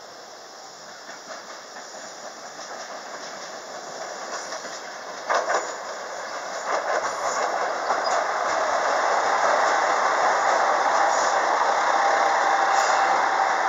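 A JR West 285 series "Sunrise Express" electric multiple unit approaching and running past along the platform, its rumble growing steadily louder over the first several seconds and then holding. There is a sharp clack about five seconds in, and a faint steady whine joins near the end.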